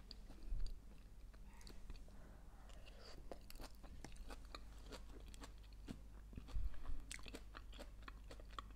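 A person chewing a mouthful of leafy arugula salad: soft, irregular crunches and wet mouth clicks, a few slightly louder about half a second in and again near two-thirds of the way through.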